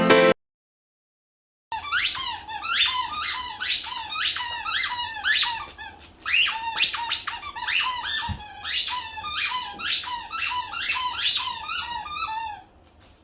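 Rapid run of high-pitched squeaks, about two a second, each sweeping sharply upward in pitch, starting after a second and a half of silence and stopping just before the end.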